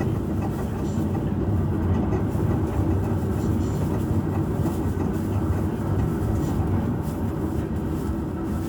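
Passenger train in motion, heard from inside an economy-class carriage: a steady low rumble of wheels and running gear on the rails, with a few faint clicks.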